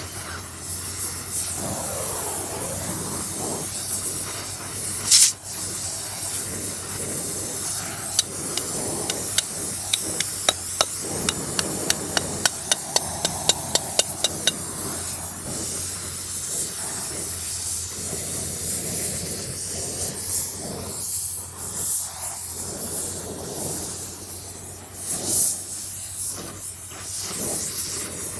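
Steady hiss of a handheld gas torch flame heating a tractor flywheel's ring gear so it expands to go on, with a quick run of light metal hammer taps, a little over two a second, in the middle, driving the ring gear down. One sharper knock comes about five seconds in.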